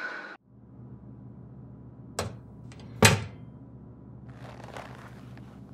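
Two sharp knocks about a second apart, the second louder, over a low steady hum, followed by soft rustling.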